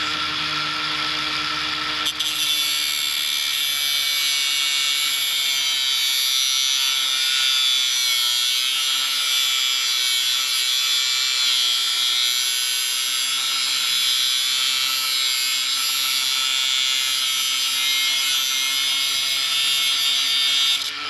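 Cordless angle grinder cutting through the kinked steel cable of a RIDGID K-400 drain snake: a steady motor whine, joined about two seconds in by a harsh grinding hiss as the disc bites into the steel. It stops at the very end.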